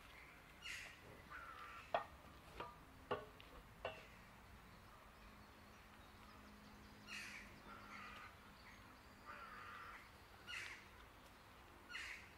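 Faint crows cawing, several short harsh calls spread through. About two seconds in there are four sharp knocks within two seconds, the loudest sounds here.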